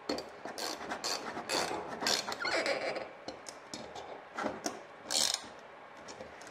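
Small ratchet wrench clicking in short irregular runs as nuts are tightened on steel standoffs in a welding fixture. The runs come thickly at first, then more sparsely after about three seconds.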